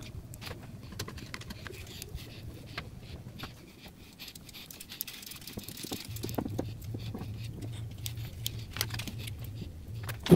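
Light, irregular clicks and taps of small objects and tools being handled at a workbench, over a low steady hum that drops out for a couple of seconds midway.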